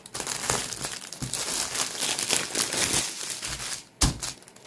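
Plastic packaging crinkling and rustling as it is handled, with a sharp knock about four seconds in.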